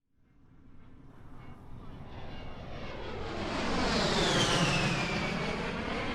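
Armoured personnel carrier approaching and driving past: its engine and running gear build up from nothing, loudest a little past the middle, where a high whine falls in pitch as it passes.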